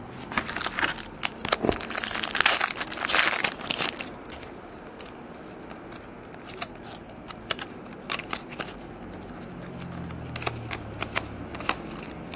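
Trading-card pack wrapper crinkling and tearing open for about four seconds, then scattered light clicks of cards being flipped and set down.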